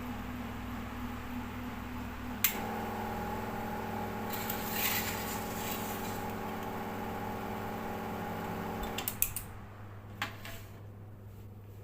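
Electrical hum switched on with a click about two and a half seconds in: a steady buzzing hum with several tones that runs for about six seconds, then cuts off with a few clicks, under a constant low mains hum.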